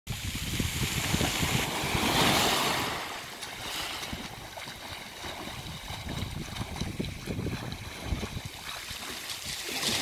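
Small waves washing onto a pebble beach, one louder wash about two seconds in, with wind buffeting the microphone.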